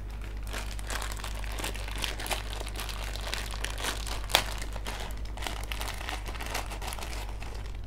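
A plastic snack bag crinkling as cassava chips are shaken and poured out of it. The bag gives dense, irregular rustles, with one sharp crackle about four seconds in.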